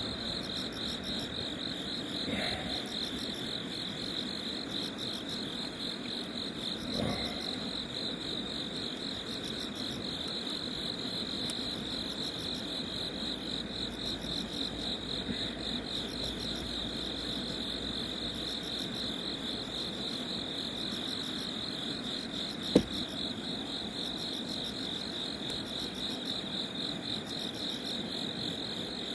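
Crickets and other night insects chirping in a steady, fast-pulsing chorus. A single sharp click sounds about three-quarters of the way through.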